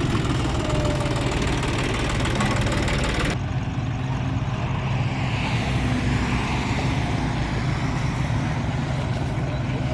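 Heavy diesel engine of a road milling machine running steadily at low revs. The background hiss changes abruptly about three seconds in.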